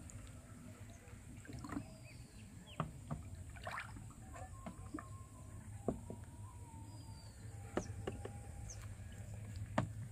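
Scattered light knocks and clicks against the wooden boat, with small water splashes, over a steady low background hum. Faint bird calls come in the background.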